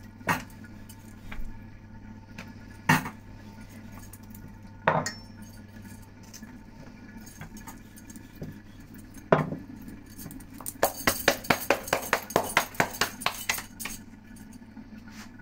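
Wooden rolling pin rolling out dough on a stone worktop, with a few sharp knocks spaced seconds apart, then from about ten seconds in a quick run of clinks from the roller and the cook's stacked metal bangles.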